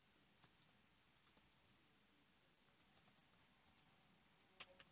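Faint keystrokes on a computer keyboard: scattered soft clicks in an irregular typing rhythm, a few louder ones near the end.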